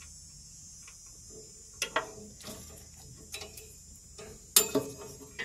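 Light clicks and taps as a gas-grill igniter electrode and its wire are handled and fed through a hole in the metal firebox. A few scattered clicks come about two seconds in, and a louder cluster of clicks near the end.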